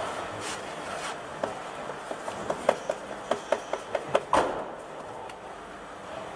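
Hand work on car body filler: scraping and rubbing with a run of short sharp clicks, the loudest a bit over four seconds in.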